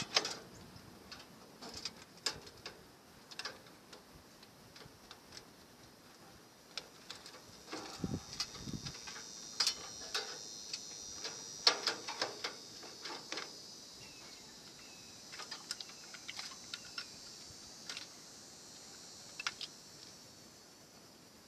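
Irregular light clicks and taps, as of tools and small metal parts being handled while a microwave oven is taken apart, with a couple of heavier knocks about eight seconds in. A faint high hiss runs through the middle stretch.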